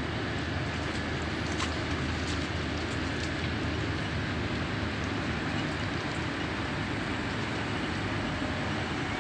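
Inland motor cargo barge's diesel engine running with a steady low rumble as the barge passes.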